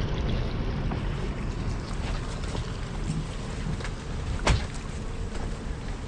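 Yamaha outboard motor of a pontoon boat running slowly as the boat comes alongside a dock, with wind rumbling on the microphone. A single sharp knock about four and a half seconds in.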